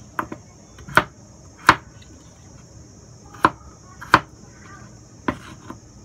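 Kitchen knife chopping peeled potato into dice on a wooden cutting board: about eight sharp knocks of the blade striking the board at an uneven pace, some in quick pairs.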